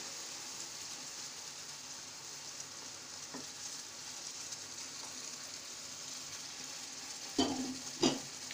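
Semolina halwa sizzling in ghee in a frying pan as the freshly added sugar syrup cooks off, with a spatula stirring through it. Two short, louder spatula strokes come near the end.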